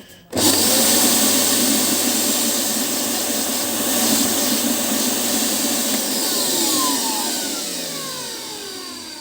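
Philips FC8950 vacuum cleaner motor starting suddenly about half a second in and running with a steady loud rush of air. It then winds down with a falling whine over the last few seconds. After the motor repair its sound is within normal limits, with no roar.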